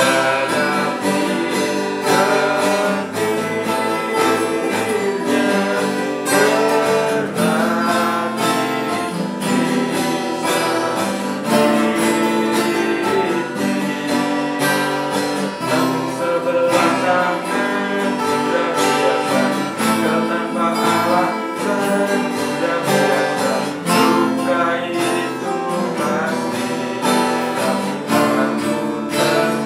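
Two acoustic guitars strummed and picked together, with a man singing over them.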